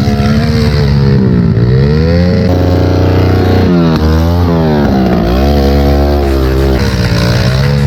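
Pit bike engine revving hard while ridden, its pitch climbing, holding high, then dropping and climbing again several times as the throttle is worked and gears change.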